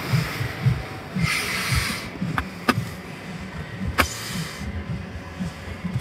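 Handling noise from a handheld camera moved around inside a car cabin: irregular low thumps and a brief rustle, with a few sharp clicks, the loudest about four seconds in.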